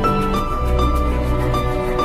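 Background music: soft instrumental with sustained melody notes over a steady bass.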